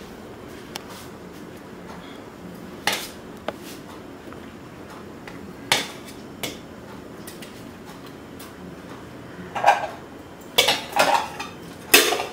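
Metal spoon knocking against stainless steel pots: a few separate clinks, then a quicker run of clattering near the end.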